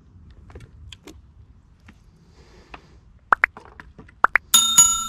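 Subscribe-button animation sound effects: four sharp mouse clicks in two pairs, then a bright bell ding that rings on.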